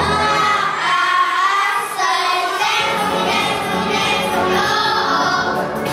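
Upbeat dance-pop track with a group of children singing along into microphones. The bass and beat drop out about half a second in and come back at about three seconds.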